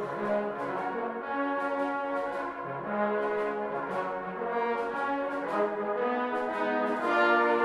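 Brass band playing sustained, shifting chords over a light, regular ticking rhythm, growing louder near the end.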